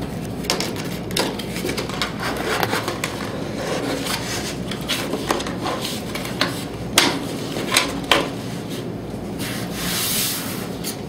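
Puzzle lamp pieces being rubbed, bent and hooked into one another by hand. There is a steady scraping with sharp irregular clicks as the pieces are connected, and the loudest clicks come about seven seconds in.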